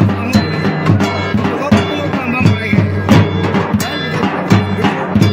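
Drum band playing: a large bass drum beaten with a curved stick and other drums, with strokes falling several times a second over a steady held pitched tone.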